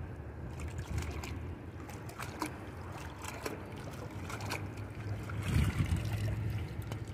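Water trickling and dripping as a heavy, bag-wrapped magnet fishing catch is hauled up out of the water, with scattered clicks and knocks of handling over a low steady rumble.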